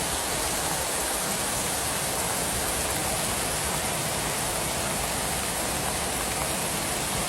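Heavy downpour: a steady, dense hiss of pouring rain.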